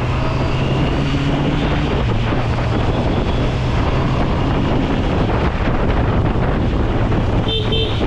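Honda CBR 650R's inline-four engine running steadily while riding, with heavy wind buffeting the action-camera microphone. A short beep sounds near the end.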